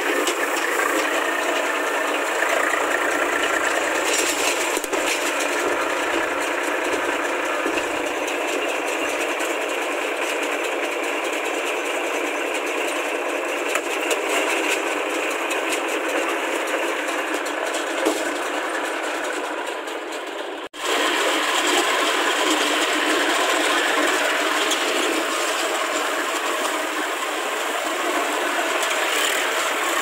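Eicher 380 three-cylinder tractor running a Redlands baler off its PTO: a steady mechanical clatter of the baler's chains and sprockets over the running engine. It breaks off for an instant about two-thirds of the way through and the same sound carries on.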